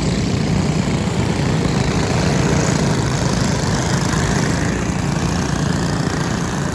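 Several dirt-track racing karts' small engines running together in a steady blended drone as the pack circles the oval on the pace lap.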